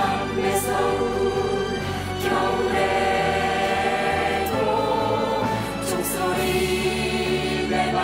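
Mixed group of voices singing a Christmas song in Korean together over instrumental backing, the lyric here '차디찬 매서운 겨울에도' (even in the bitter, cold winter).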